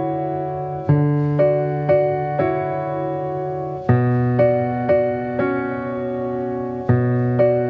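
Background keyboard music in a piano sound: single notes struck about twice a second over sustained chords that change roughly every three seconds.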